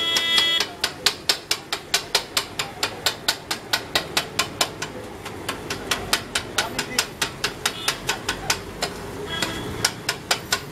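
Rapid, regular metallic clanging, about four strikes a second, of a metal cooking utensil striking a pan or griddle at a street food stall. A short high ring sounds at the start and again near the end.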